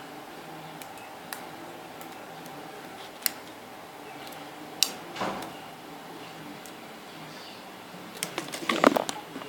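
Light handling noises over a steady faint hum: a few scattered sharp clicks and taps, then a denser run of clicks and rustling near the end.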